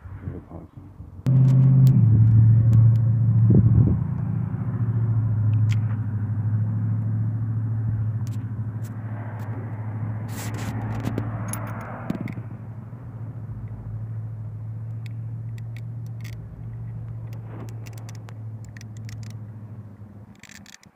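An engine starts abruptly about a second in and runs with a steady low hum, slowly fading and stopping near the end. Faint small clicks sound throughout.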